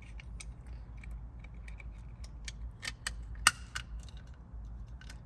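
Small plastic dashcam mounting parts being handled and fitted: scattered light clicks, with one sharper snap about three and a half seconds in, over a steady low hum.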